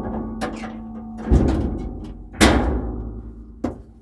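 Heavy thuds and clunks on the steel body of a Kaiser Jeep M715 truck, picked up through a camera mounted on its hood. There are three knocks about a second apart, the middle one the loudest, and each rings out briefly.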